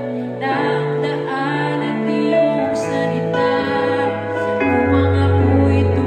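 Slow, tender Tagalog worship-song music with long held notes and chords that change about once a second. A deep bass note comes in about three-quarters of the way through.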